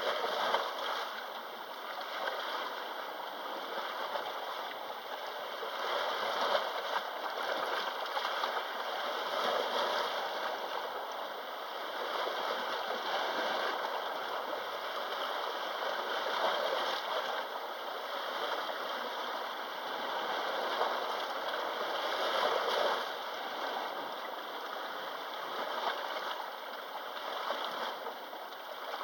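Sea waves washing onto the shore, a steady rush that swells and eases every few seconds.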